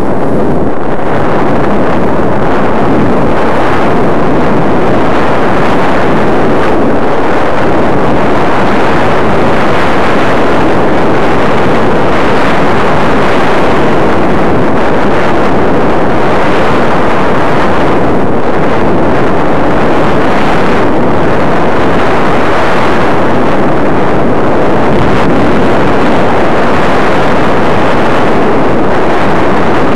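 Loud, steady wind noise on a small camera's microphone as the skier carrying it runs downhill.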